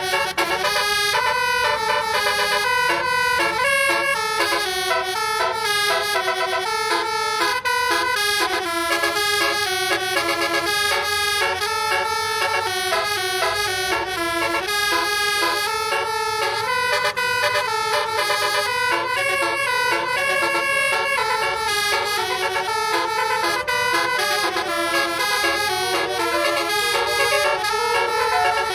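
Basuri telolet multi-tone bus horn playing a fast, continuous melody of horn notes.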